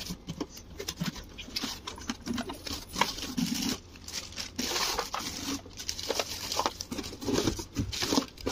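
Cardboard packaging and plastic wrapping being handled: irregular rustling and crinkling of plastic bags and bubble wrap, with scrapes and taps of the cardboard box, as packed parts are pulled out.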